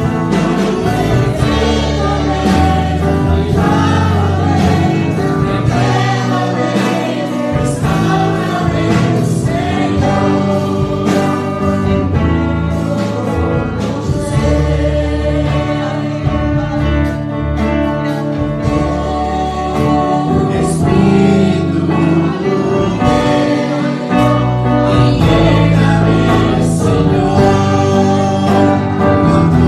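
Gospel worship song sung by a young woman and a man at microphones, over instrumental accompaniment with a steady bass line.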